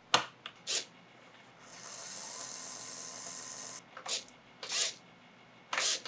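A couple of sharp clicks, then a small DC gear motor spinning up and running with a steady whine for about two seconds. After it come several short buzzing sweeps of a Tower Pro micro servo moving its horn.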